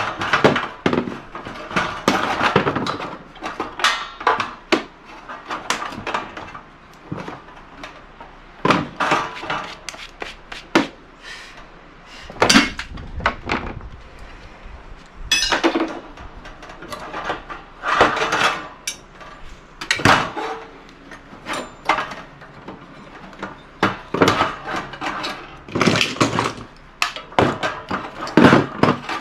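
Irregular metallic clanks, knocks and rattles of hand tools and loose metal parts as a gas wall heater is taken apart by hand.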